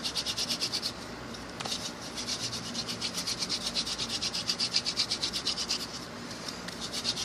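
Hand-drill friction fire: a yucca spindle spun back and forth between the palms, grinding into a trumpet creeper hearth board with fast, even, rhythmic scraping. The strokes break off briefly about a second in and again about six seconds in.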